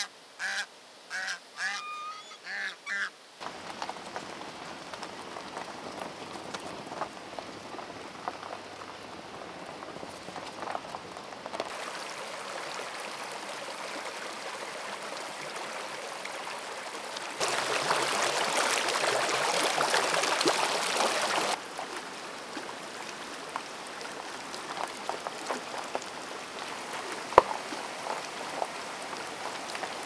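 A white domestic duck gives about six short, loud calls in the first three seconds. Then comes running water: a small mountain stream gurgling over rocks, with a louder rush of water for about four seconds in the middle.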